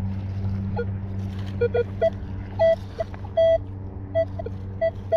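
Nokta Legend metal detector's built-in speaker giving short, irregular target beeps from about a second in, mostly at one mid pitch with a few lower tones, over a steady low hum. The speaker audio is working again with the detector's Bluetooth switched off.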